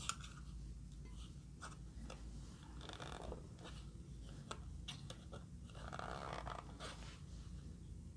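Hands handling a plastic eyeshadow palette case: a sharp click right at the start, then scattered light clicks and soft scratching, with two longer stretches of rubbing about three and six seconds in.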